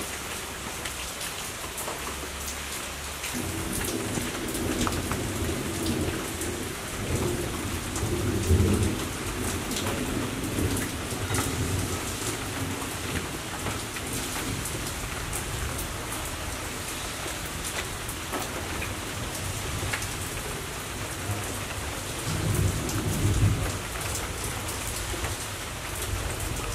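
Steady rain falling and pattering on garden leaves, with many individual drop ticks. A low thunder rumble comes in about three seconds in and swells twice, once about a third of the way through and again near the end.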